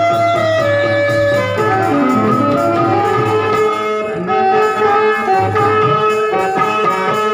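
Live instrumental accompaniment: a Yamaha PSR electronic keyboard plays a melody of held notes in a reed-like voice, with a harmonium under it.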